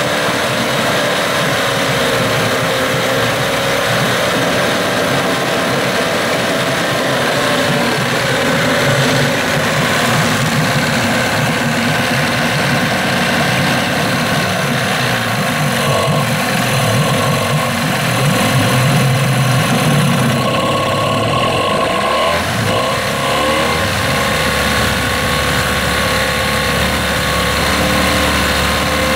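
Johnson 15 hp outboard motor running steadily in a test tank, its speed wavering slightly; late on, the propeller churns the tank water and adds a lower rumble. It is being run with its thermostat removed, to check its running temperature and whether it still steams.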